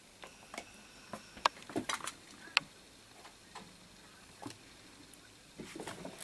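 Irregular light clicks and taps from kittens playing with a shoe on a tiled floor, with two sharper clicks about a second and a half and two and a half seconds in.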